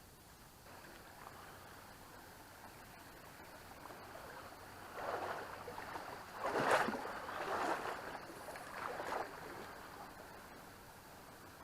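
A small trout creek running steadily. Several louder rushes of noise come and go between about five and nine seconds in.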